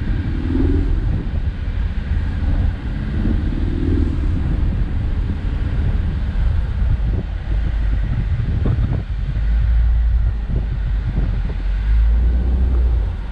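Ford Mustang convertible driving slowly uphill with the top down: a steady low engine and road rumble, with the engine note swelling briefly twice in the first few seconds, and some wind on the microphone.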